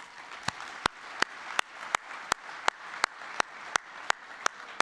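Audience applauding, with one man's sharp, evenly spaced hand claps about three a second close to the lectern microphones standing out over it.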